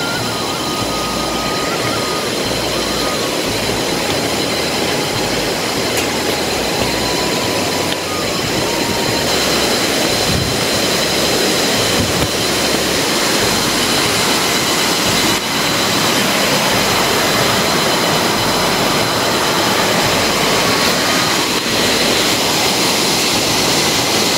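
Fast, muddy mountain river rushing loudly below a suspension bridge: a steady roar of water that grows a little louder about a third of the way in.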